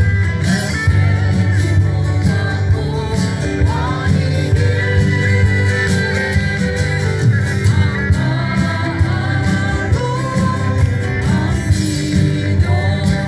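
Live band music with singing and a strong steady bass line, playing without a break.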